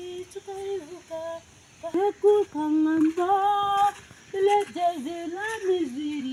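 A woman singing unaccompanied: a slow melody with gliding pitch and several notes held for about a second.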